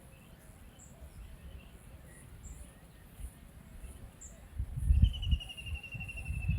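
Faint, scattered bird chirps over a low rumble that grows louder about two-thirds of the way through, with a rapid trilling call near the end.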